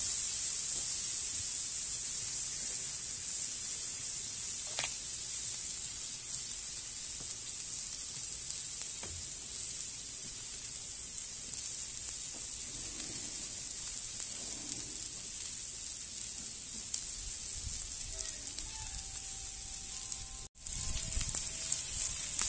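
Filet mignon sizzling steadily as it sears on a very hot Blackstone flat-top griddle, heated to about 600 degrees under the dome. The sizzle cuts out for an instant near the end.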